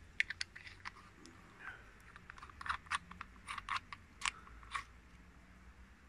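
Small, sharp plastic clicks and scrapes, about a dozen at irregular intervals over the first four and a half seconds, from a six-pin Tesla connector being handled and worked apart in the fingers.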